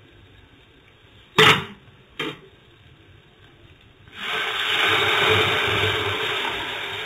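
Two short knocks, then about four seconds in a loud sizzle as buttermilk whisked with gram flour is poured into a hot kadai of ghee-fried spices, green chilli and ginger. The sizzle peaks within a second and slowly dies down.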